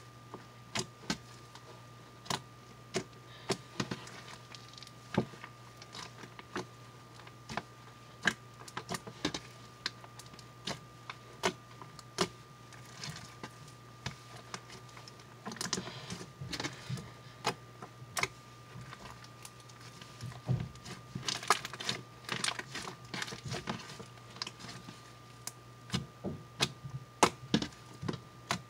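Pink slime with lotion worked in, being stretched, folded and squeezed by hand: irregular sharp clicks and pops of trapped air, with two longer spells of dense sticky crackling near the middle and later on, over a steady low hum.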